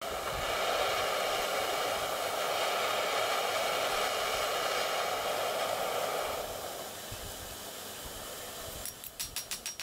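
A steady rushing hiss that drops in level about six and a half seconds in, then near the end rapid light hammer taps on a fork against a steel anvil, about six a second.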